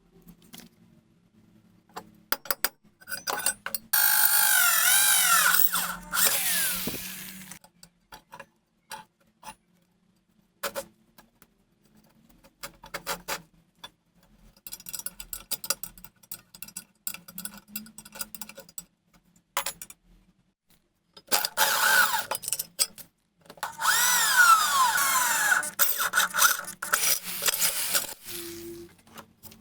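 A power tool runs in two loud stretches of a few seconds each, its high pitch sliding up and down as it works. Between the runs come scattered clicks and clatter of handling.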